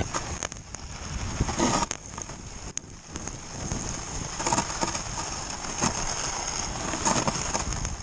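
Snowboard sliding and scraping through snow, an even hiss with scattered crackles as the board kicks up spray.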